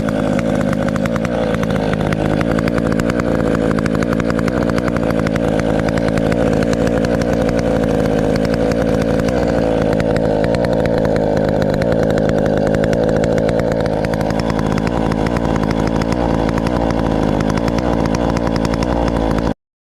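Chainsaw with square-ground chain running at high revs, cutting steadily, then cutting off suddenly near the end.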